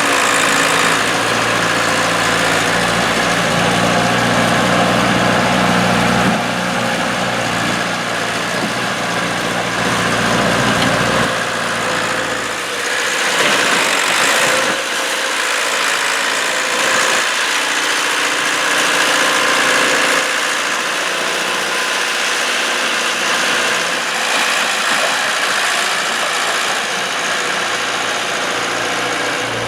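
A motor vehicle's engine idling steadily, with a slight change in its sound about six seconds in and again around the middle.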